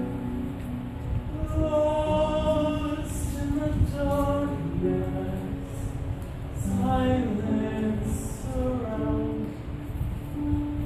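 A man singing a musical-theatre song solo, accompanied on grand piano.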